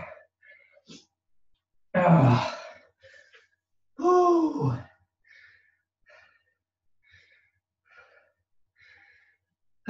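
A man out of breath after a hard high-intensity workout: two loud sighing breaths with his voice in them, about two and four seconds in, the second falling in pitch, then short quiet panting breaths.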